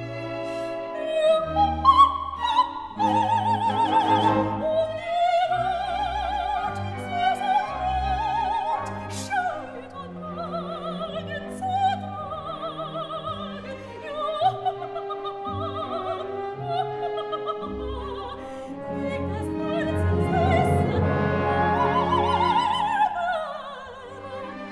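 Background music: operatic singing with vibrato over an orchestra.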